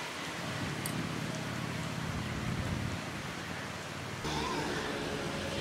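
Steady outdoor background noise with a faint low hum, growing a little louder about four seconds in.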